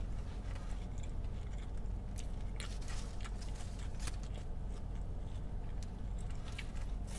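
Close-miked chewing of a carne asada taco: small wet clicks and smacks scattered all through, over a steady low hum.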